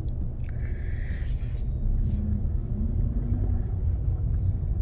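Steady low rumble of a moving vehicle, with a brief hiss about a second in.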